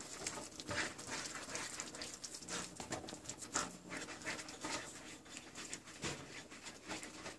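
Spatula stirring and pushing thick tomato puree around a frying pan: faint, repeated soft scraping strokes with a light sizzle of the frying sauce.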